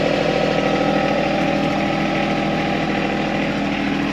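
John Deere 2025R compact tractor's three-cylinder diesel engine idling steadily.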